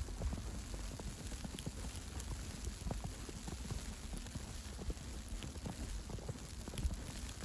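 Footsteps crunching through fresh snow, a steady run of short irregular crunches over a low outdoor hiss.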